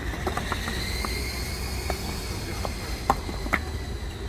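Concrete paving stones clacking against each other as they are set down and tapped into place: a string of irregular sharp knocks, the loudest about three seconds in. Underneath runs the low, steady idle of the Hidromek 102S backhoe loader's diesel engine, with a faint high steady whine.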